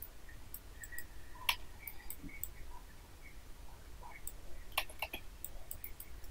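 Computer mouse clicking: a few sparse, faint clicks, the sharpest about a second and a half in and two close together near the five-second mark, over a faint low hum.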